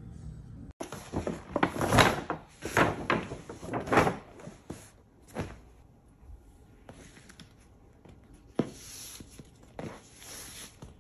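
A leather handbag being handled, with the clicks and knocks of its metal clip hardware snapping onto the handle ring. The loudest knocks come about two and four seconds in, followed by quieter rustling and taps.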